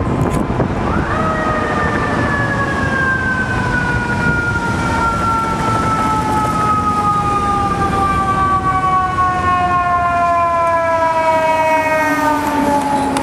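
Fire truck's mechanical siren winds up sharply about a second in, then slowly winds down in pitch as it coasts. Underneath is the low rumble of heavy truck engines.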